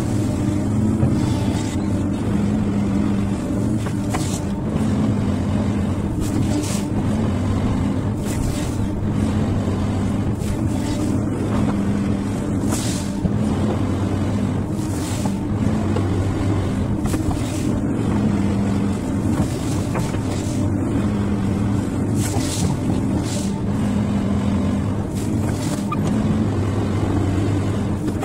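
XCMG XE215C crawler excavator's diesel engine running steadily under hydraulic load as it digs, swings and dumps gravel, with short hissing rushes every few seconds.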